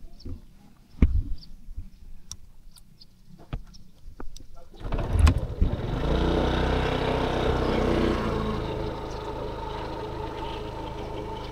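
A few faint clicks and knocks, then about five seconds in a vehicle engine starts up and runs steadily, loudest for the first few seconds before settling to a lower, even running.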